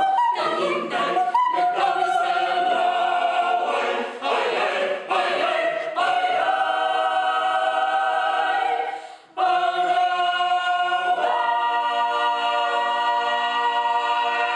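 Choir singing a cappella on the repeated syllables "tigidong". There is a brief break about nine seconds in, and the song closes on a long held chord near the end.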